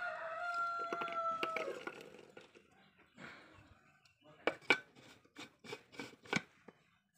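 A rooster crowing once, a held call that falls slightly, in the first couple of seconds. About three seconds later comes a run of sharp clicks and knocks as the small blender jar and its lid are fitted onto the blender base.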